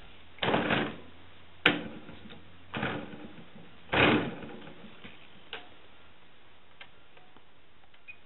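Homemade model-airplane engine being turned over by hand to start it: four short bursts about a second apart with a sharp click among them, and the engine does not catch.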